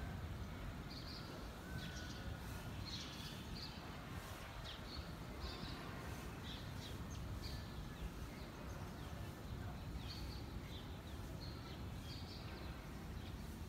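Birds chirping in many short, scattered calls over the steady hiss of light rain.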